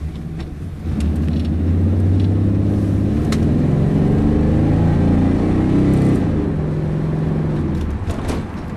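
Holden VN Commodore's V6 engine pulling away under acceleration. Its note rises in pitch, drops about six seconds in as the transmission shifts up, then runs on steadily.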